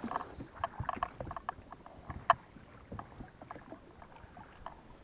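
Oars working in the oarlocks of an inflatable rowing boat: a string of short clicks and knocks, the loudest a little past two seconds in, growing quieter toward the end.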